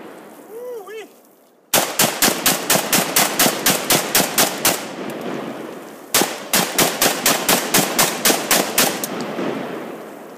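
AK-47 rifle (7.62×39 mm) fired in two long strings of rapid shots, about five a second, with a pause of over a second between them; each string trails off in echo.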